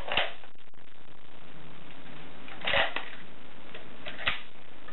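Short clicks and knocks of an AR-style .308 rifle being handled: one just after the start as a magazine is pushed into the magazine well, a small cluster a little before the middle, and a single sharp click near the end.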